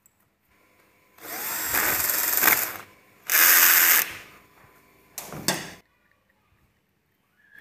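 A power tool run in three short bursts: the first about a second and a half long, the second under a second, the third about half a second, near the end.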